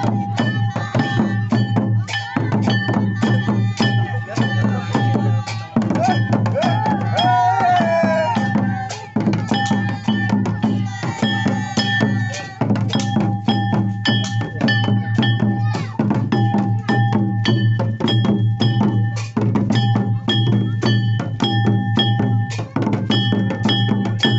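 Santali folk music with tumdak and tamak drums playing a fast, steady beat and a repeating high ringing tone on top, with a brief wavering melodic line about a third of the way through.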